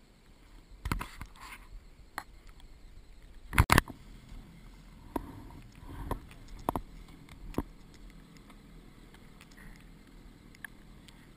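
Knocks and thumps of boots climbing from a snowy pier down into an inflatable boat. The loudest double knock comes about three and a half seconds in, with several smaller bumps over the next few seconds.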